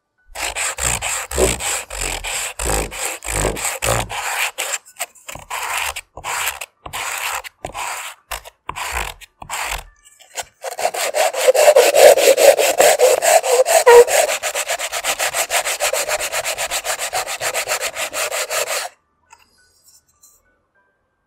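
Coconut shell being sanded by hand: the hard outer shell scraped against sandpaper in separate strokes, then, about ten seconds in, rubbed rapidly back and forth on a sanding block in quick even strokes that stop suddenly near the end.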